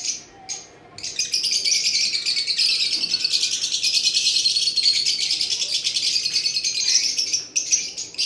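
Caged parrots chattering: a few short chirps, then from about a second in a dense, rapid stream of high chirps that tails off near the end.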